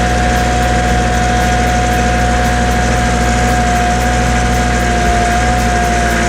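Excavator engine running steadily while the bucket digs, with a constant whine held on one pitch over the low engine hum.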